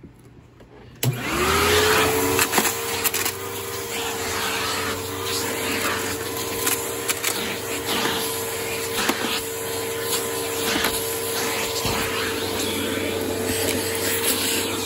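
Riccar 8905 bagged upright vacuum cleaner switched on about a second in: its motor whine rises briefly as it spins up, then runs steadily with a rush of suction and scattered clicks and knocks.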